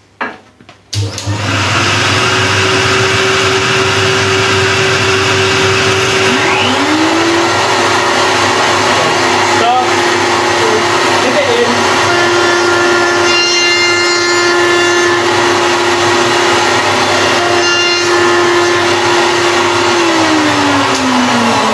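Table-mounted router switched on about a second in and running at a steady pitch while it takes a light skimming cut across the end grain of a curved workpiece, removing burn marks. Its pitch dips briefly about six seconds in and recovers, and it winds down with a falling whine near the end.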